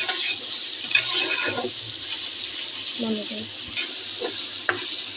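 Chickpeas and mashed potato frying in oil in a kadai, sizzling, with a spoon scraping and knocking against the pan as they are stirred.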